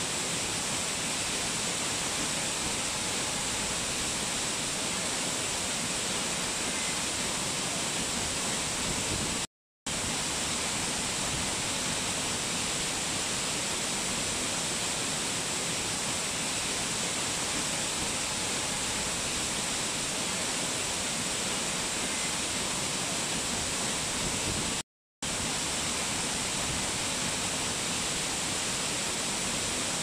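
Steady rushing of falling water from a waterfall, an even unbroken roar of white water. It drops out to silence for a split second twice, about ten seconds in and again about fifteen seconds later.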